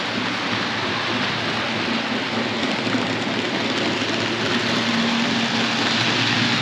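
Model trains running on the layout's three-rail track: a steady rolling rattle of wheels on rail that grows a little louder as the locomotives approach, with a steady motor hum coming in about two-thirds of the way through.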